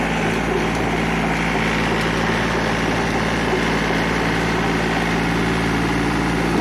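A 36 hp John Deere compact tractor's diesel engine running steadily under load while it drives a 7-foot Maschio Virat rotavator tilling soil.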